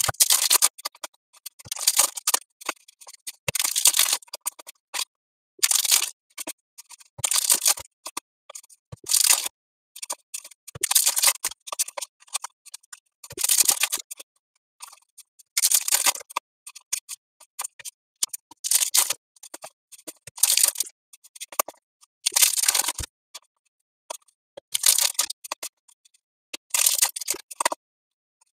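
Trading cards slid one at a time off a handheld stack: a short, dry papery swish about every two seconds.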